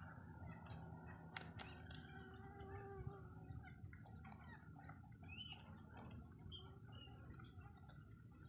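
Faint, scattered clicks and crunches of rabbits chewing their food, with a few short, faint bird chirps over a low background hum.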